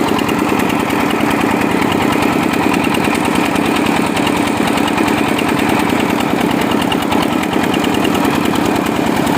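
Diesel engine of a mobile rice-milling machine running steadily at a constant speed, with a fast, even firing rhythm.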